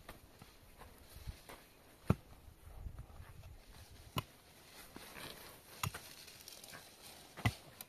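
A pickaxe striking hard, stony soil while digging: four heavy blows about two seconds apart, each a sharp thud with a crunch of earth and stones, and a few lighter knocks between them.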